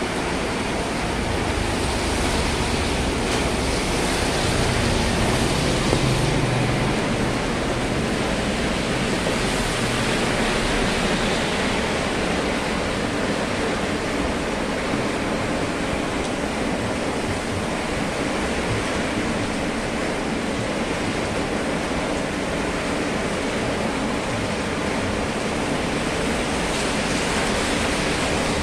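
Steady rain with wind, heard as a constant rushing hiss, with a car driving past on the wet road near the end.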